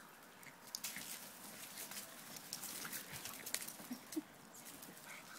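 Norfolk terrier and French bulldog puppies play-wrestling: scuffling with scattered sharp clicks and scrapes, and two short low grunts around four seconds in.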